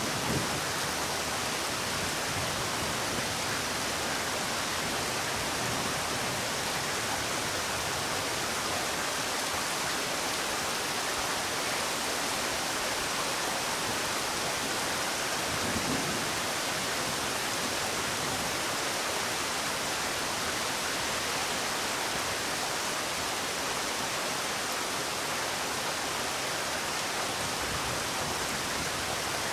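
Steady rain falling, an even hiss of drops with a soft low thud about halfway through.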